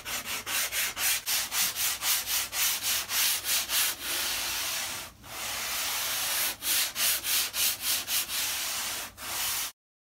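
Hand-sanding a board with a sanding block: quick back-and-forth rasping strokes, about three or four a second, with a few longer sweeps in the middle, stopping suddenly near the end.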